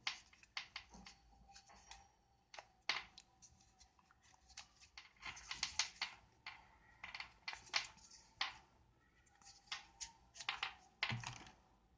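Earphones being taken out of their packaging by hand: faint, irregular clicks and scratchy rustles, some in quick clusters.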